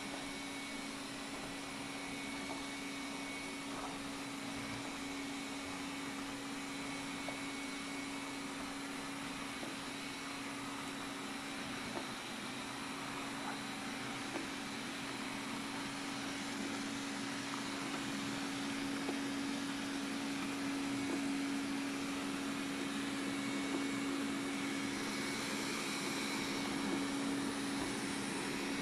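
Xiaomi Mijia 1C robot vacuum running: a steady motor hum with a constant tone and a few faint clicks, growing a little louder in the second half.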